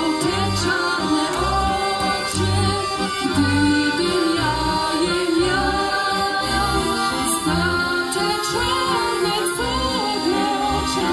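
Three accordions playing a Polish folk song, holding chords over a regular beat of bass notes, while a woman sings the melody over them.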